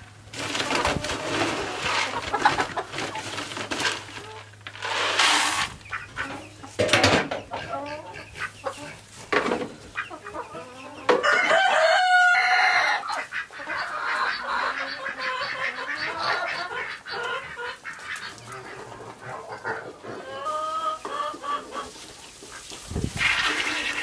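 Chickens clucking and a rooster crowing several times, the loudest crow about halfway through. Under them, feed rattles and scrapes as it is scooped out of galvanized metal cans.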